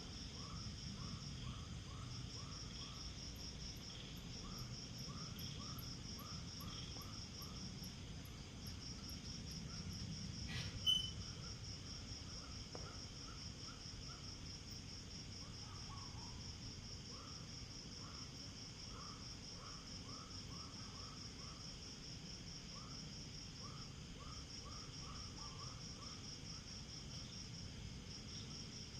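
Night insects chirping: a steady, fast-pulsing high cricket trill, with runs of short lower chirps coming and going over a low rumble. A single sharp click comes about eleven seconds in.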